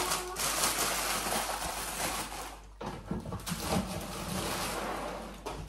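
Plastic cereal-bag liner crinkling and rustling as it is folded shut and pushed back down into its cardboard box, with a short break about two and a half seconds in.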